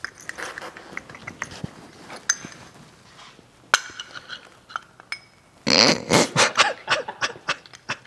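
Small metal parts of a battery cut-off switch being handled: scattered clicks and clinks, then a denser run of rattling and scraping about six seconds in. The switch has broken open from being dropped on the floor.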